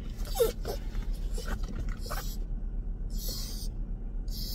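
Yorkshire terrier puppy whining, a few short high cries in the first two seconds or so, with bursts of hiss between them; the whining is a sign of the puppy's anxiety.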